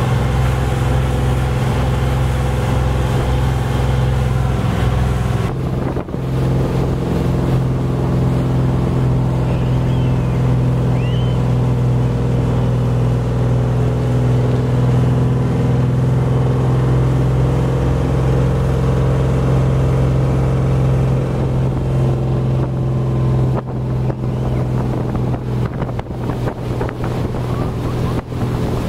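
Speedboat engine running steadily at speed, a loud low drone, over the rush of water churned up in its wake. The sound changes abruptly about six seconds in and again near the end.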